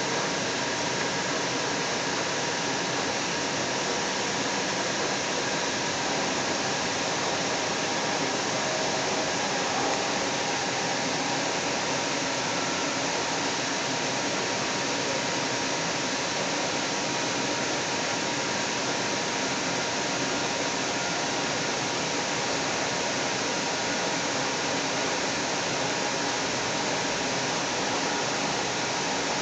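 Steady rushing noise inside a moving light rail car: running noise of the train with a faint steady whine, unchanging in level throughout.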